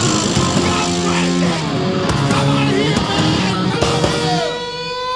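Live heavy metal band playing, led by a distorted electric guitar running through a quick riff. About four seconds in, the guitar settles on a long held note that slowly bends upward.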